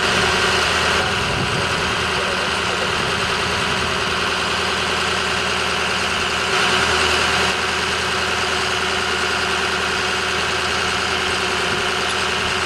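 Fire engine's engine idling with a steady drone, a little louder for about a second at the start and again about halfway through.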